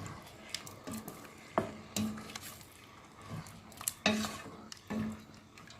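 A spoon stirring in a cooking pot, scraping and knocking against the pot several times.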